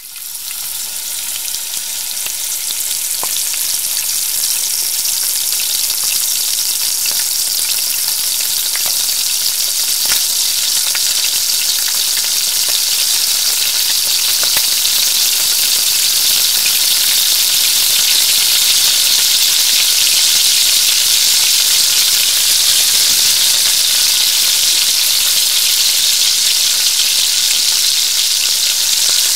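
Food frying in hot oil: a dense, steady sizzle with scattered small pops and crackles, swelling over the first few seconds and then holding level.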